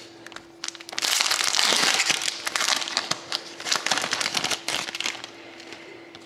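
Foil trading-card pack wrapper being torn open and crinkled by hand: a run of dense crackling that starts about a second in and lasts about four seconds, then dies down.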